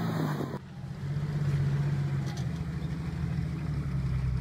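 Jeep CJ7 engine running steadily at low revs, a low, even hum. Less than a second in, the sound changes abruptly from one engine to another.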